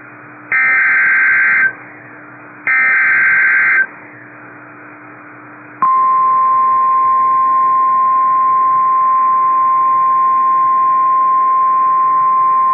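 NOAA Weather Radio Emergency Alert System header: two harsh digital data bursts, each about a second long and a second apart. About two seconds later the steady 1050 Hz weather-radio warning alarm tone starts abruptly and holds. It signals that a warning, here a severe thunderstorm warning, is about to be read.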